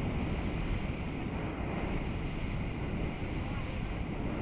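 Hot-air balloon's propane burner firing in one long blast, a steady loud rushing noise.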